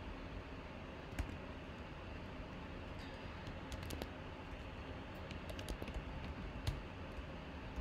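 Computer keyboard keystrokes, typed in short scattered runs, over a faint steady low hum.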